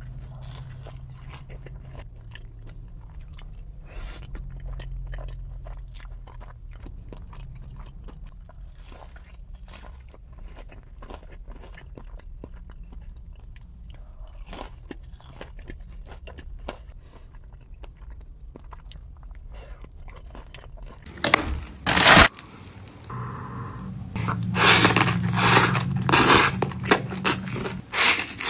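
A person chewing food close to the microphone: steady, quiet wet chewing, then from about three quarters of the way through much louder crunchy bites, one after another.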